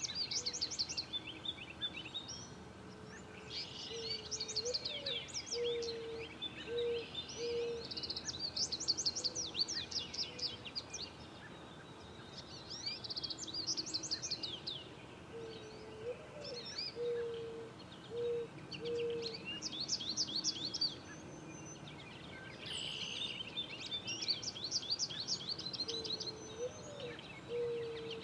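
Outdoor birdsong: songbirds chirping in quick bouts of high trills, over a steady background of outdoor noise. A low call of one rising note followed by four short even notes comes three times, about every ten seconds.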